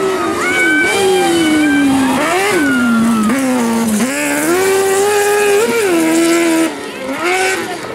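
Kart cross buggy's motorcycle-derived engine revving hard on a gravel stage. Its pitch slides down and climbs again several times as the driver lifts off and accelerates through the bends, and the sound drops off sharply near the end.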